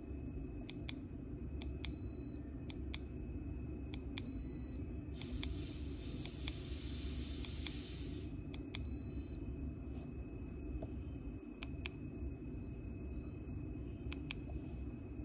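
Handheld Geiger counters clicking sparsely and irregularly, about one tick a second, as they count background radiation. A few short high electronic beeps come from button presses on one unit, and a hiss runs for about three seconds midway, all over a steady low hum.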